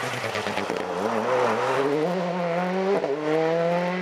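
Rally car engine accelerating hard, its pitch climbing, with a sharp break for an upshift about three seconds in before it climbs again.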